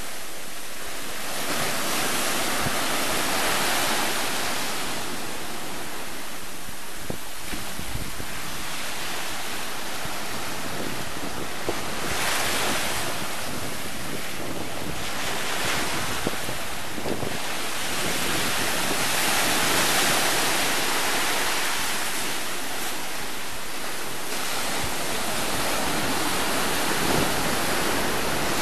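Sea surf: waves breaking and foam washing up the sand and around sandstone rocks, swelling and easing every few seconds, with wind rumbling on the microphone.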